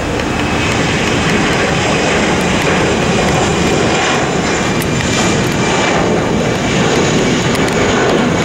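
Jet engines of an Allegiant Air Airbus narrowbody airliner at takeoff thrust during its takeoff roll: a loud, steady rush with a thin high whine on top.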